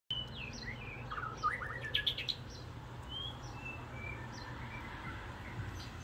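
Songbirds singing and chattering with varied whistled notes and quick pitch slides: a busy run in the first two and a half seconds, then sparser single whistles. A steady low hum runs underneath.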